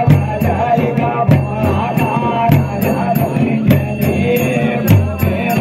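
Live folk drumming accompanying a lion-mask dance: deep drum beats in a steady rhythm with bright metallic jingling strikes about three times a second.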